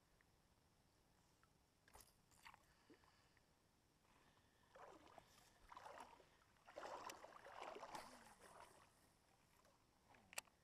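Mostly near silence, with faint swishing, water-like sounds through the middle and a few light clicks before and after.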